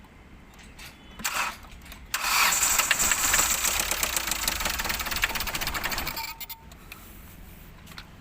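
Hyundai i20 diesel engine being cranked on the starter: a short burst about a second in, then about four seconds of fast cranking before it cuts off. The engine is hard to start.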